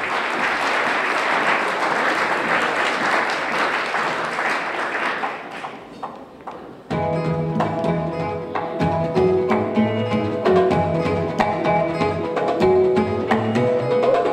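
Audience applause that fades out over about six seconds, then a Ukrainian folk ensemble starts playing abruptly: cello, bandura and hand percussion with a regular beat.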